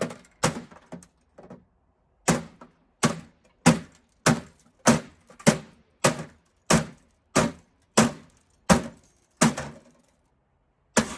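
Repeated hard blows on a ViewSonic E70F CRT monitor's plastic case and picture tube: a few light knocks, then about a dozen strikes at a steady pace of roughly one every two-thirds of a second. After a short pause a final strike near the end breaks the picture tube.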